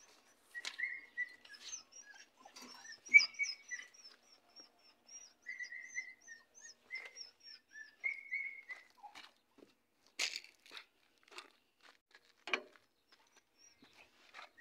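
A puppy whimpering in high, thin whines and squeaks. From about ten seconds in, a phone being handled gives scattered clicks and rustles.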